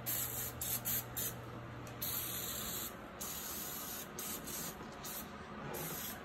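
Aerosol can of Easy-Off degreaser spraying in a series of hissing bursts, a few short squirts in the first second or so, then longer sprays, coating a greasy cooktop.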